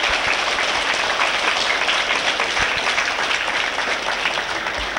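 A crowd of schoolchildren applauding: steady, dense clapping that eases slowly toward the end.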